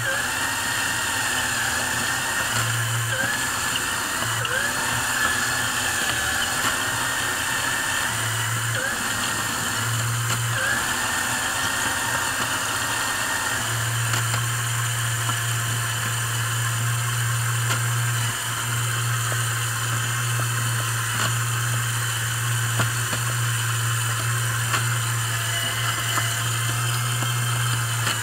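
Lego electric motors driving a Lego shredder and its worm-gear-driven conveyor belt, a steady whirring hum. Through roughly the first half, a higher whine wavers up and down as the shredder works through tinfoil; after that the sound runs evenly.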